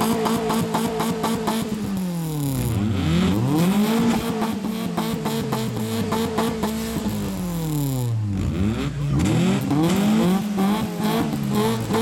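Suzuki Baleno sedan's petrol engine being revved through its exhaust while stationary: the revs climb, are held steady for a couple of seconds, then drop back, three times. The first rev is already held at the start and falls about two seconds in. The last falls away near the end.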